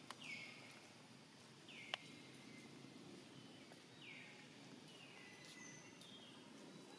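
Faint outdoor ambience with a bird calling about five times, each call a high whistle sliding down and then holding briefly, a second or two apart. A sharp click near the start and a louder one about two seconds in.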